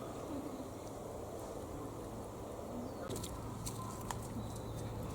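Faint squeaky calls of a young deer, like a child's squeaky shoes, over a steady low hum, with a few sharp clicks about three to four seconds in.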